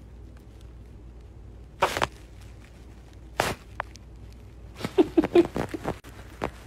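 Short breathy snorts, then about five seconds in a quick run of stifled laughter, a few short pitched bursts in a row.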